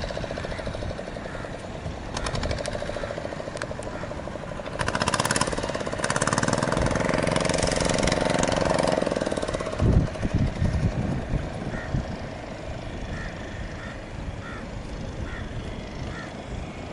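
A boat engine running steadily with a chugging note, swelling louder for a few seconds midway. Low gusts of wind hit the microphone just after.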